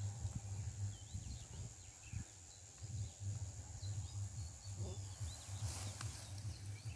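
Faint scraping and rustling as hands work soil and dry grass, over a steady low rumble, with small birds chirping briefly in the background.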